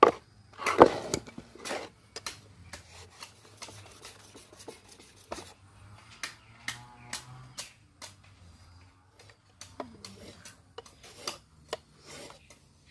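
Steel knife blade scraping and clicking against a wet whetstone as it is sharpened and handled: irregular strokes and taps, the loudest about a second in.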